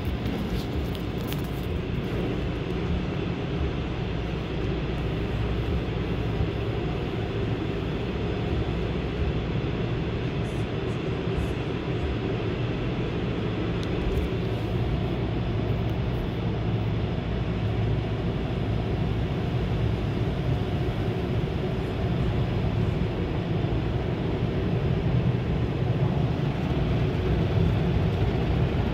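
Automatic car wash heard from inside the car's cabin: soapy water spraying and foam being worked over the windshield and body by the wash's brushes. A steady, deep rushing that grows slightly louder near the end.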